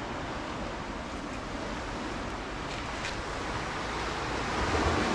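Steady rushing noise of waves breaking on a beach, with wind buffeting the microphone; it swells slightly near the end.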